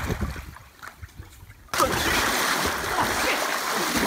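Pool water splashing and churning as two people wrestle in it, starting suddenly and loudly a little under two seconds in, after low rumbling.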